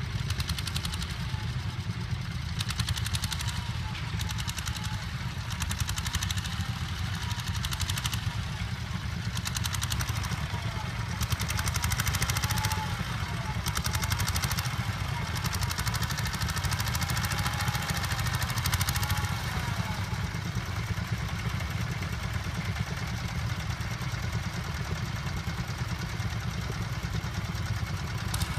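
Vintage tractor engine running steadily, a low, even rumble.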